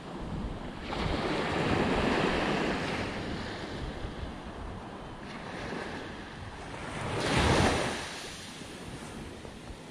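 Small waves breaking and washing up a sandy beach, swelling loudest about a second in and again near the end, with wind buffeting the microphone.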